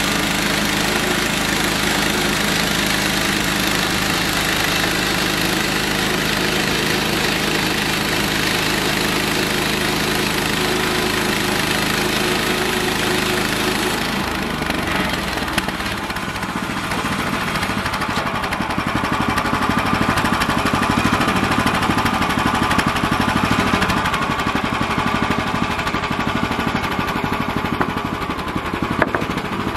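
Gas engine of a small Central Machinery (Harbor Freight) band sawmill running steadily. About halfway through its even note gives way to a rougher, noisier sound that grows a little louder for a while.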